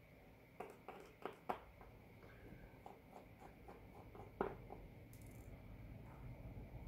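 Faint clicks and light taps of a small precision screwdriver and a smartwatch case being handled on a desk. A quick cluster of sharp clicks comes about half a second in, a run of lighter ticks follows around three seconds, and one louder click comes just past four seconds.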